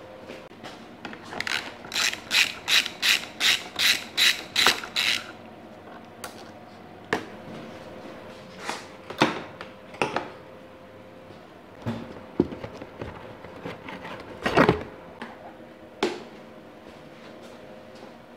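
A ratchet wrench worked in about ten quick clicking strokes, roughly three a second, as exhaust mounting fasteners are undone. After that come scattered knocks and clanks of metal parts being handled, the loudest about two-thirds of the way through.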